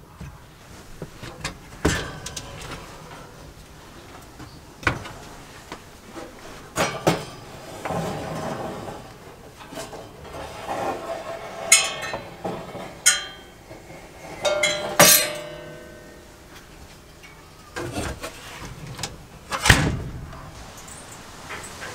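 Oven door being opened and shut, with a wire oven rack and sheet-metal engine parts clanking and clinking as they are handled inside the oven. There is a series of separate sharp knocks, some ringing briefly, with the loudest around the middle and near the end.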